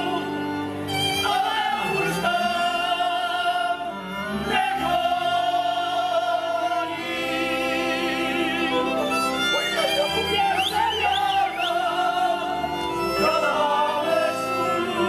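Group of men singing a Moravian folk song together in full voice, accompanied by a folk string band with fiddle.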